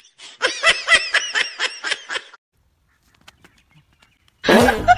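A burst of laughter, a fast run of ha-ha pulses lasting about two seconds, then a pause. Near the end a loud new sound starts.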